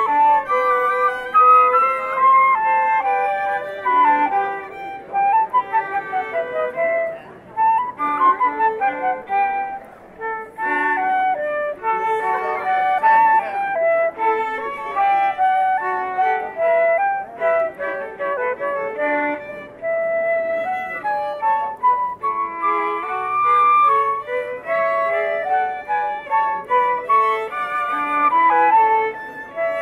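A live classical chamber trio of flute and two violins playing a piece together, with quick runs and short held notes.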